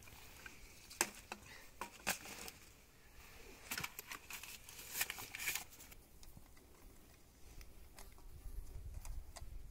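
Handling noise of gear being packed: a string of sharp clicks and knocks with a crinkling rustle, busiest in the first half. A low rumble comes in near the end.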